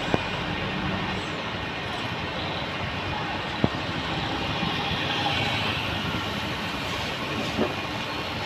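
Road vehicle noise: a steady rumble of traffic, broken by three sharp knocks, one near the start, one about three and a half seconds in, and one near the end.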